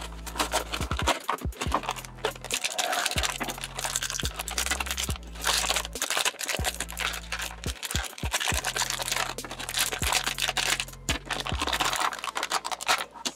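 Thin plastic bags and card packaging crinkling, rustling and tearing as toy parts are unwrapped by hand, a continuous crackle of many small rustles, over background music.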